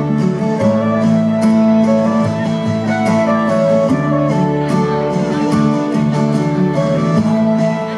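Instrumental country backing track with guitar playing, with no singing over it.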